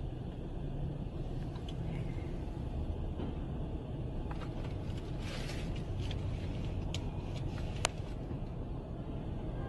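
City street traffic: a steady low rumble of idling and passing vehicles. A brief hiss comes about five seconds in, and a few sharp clicks or knocks fall in the second half, the loudest near the end.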